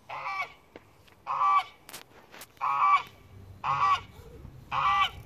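White domestic goose honking repeatedly: about five loud honks, roughly one a second.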